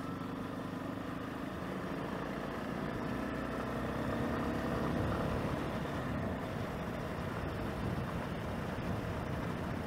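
Yamaha Lander 250's single-cylinder engine running steadily at low speed while riding, the note swelling a little about halfway through and then easing off.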